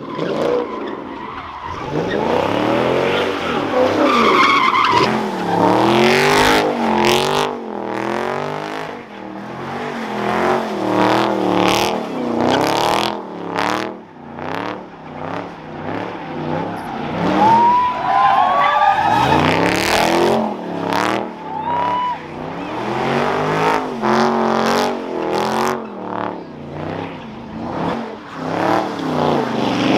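Car doing donuts: its engine revving up and down over and over as the rear tyres spin and screech on the asphalt, with a few high tyre squeals about two-thirds of the way in.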